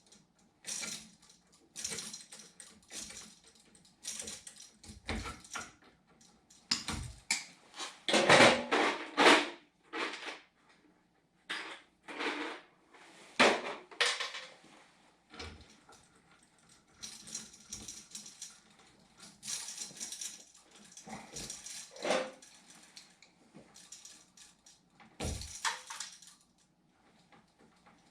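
Irregular knocking, clattering and scraping of hard objects being handled, loudest in a cluster of bangs about eight seconds in.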